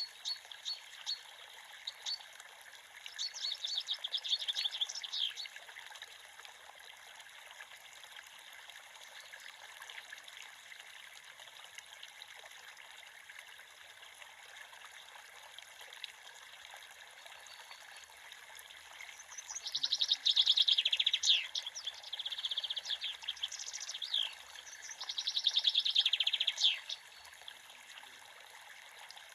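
A creek's water running steadily, with birds singing over it in bursts. Short chirps come near the start and a run of rapid notes about four seconds in. Louder phrases of fast trilled notes come about twenty seconds in and again around twenty-five seconds.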